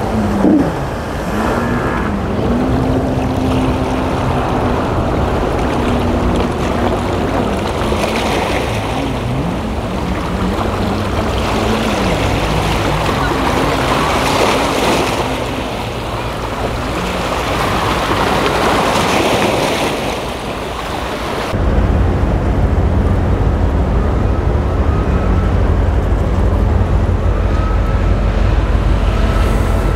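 Waves washing against a rocky shore, with a tugboat's engine running and wavering in pitch in the first third. About two-thirds through, a loud, steady low rumble sets in abruptly.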